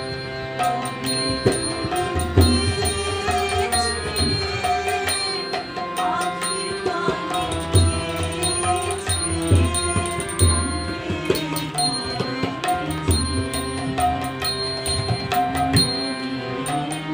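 A harmonium sustains held chords while a tabla pair plays a steady rhythm, with deep bass strokes from the bayan, accompanying a woman singing a Bengali song.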